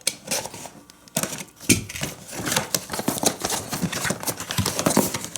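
Cardboard toy box being opened and handled: a rapid, irregular run of clicks, taps and scrapes that starts sparse and thickens just over a second in.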